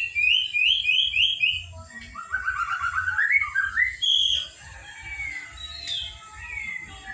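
Young white-rumped shama (murai batu) singing: a quick run of about five rising notes, then a lower chattering run that climbs in pitch, then a few scattered short whistles.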